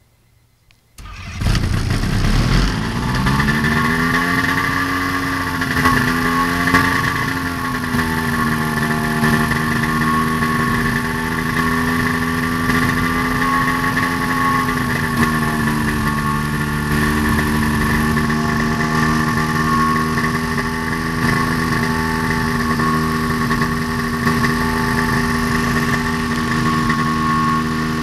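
A Kolb ultralight's engine starting about a second in, catching at once and revving up, then running steadily with its propeller turning. The pitch wavers a little a few times as the throttle is adjusted, then holds even.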